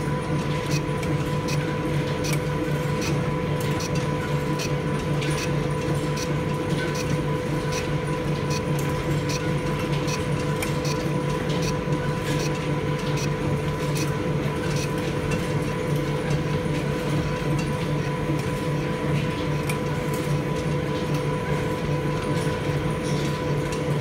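Old engine lathe running under power, its four-jaw chuck spinning as a tool faces a casting. A steady gear-train hum with held tones, and frequent light ticks over it.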